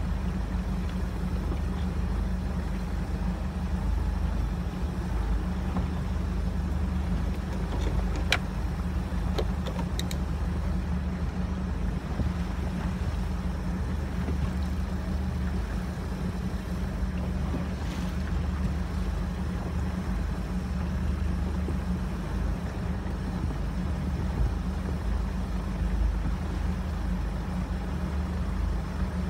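Small fishing boat's engine running steadily at slow trolling speed, a low, even drone under a wash of water and wind noise. A few light clicks about eight and ten seconds in.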